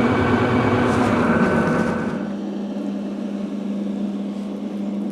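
An engine running with a steady hum. A broader, noisier layer of deeper rumble and hiss on top of it cuts out about two seconds in.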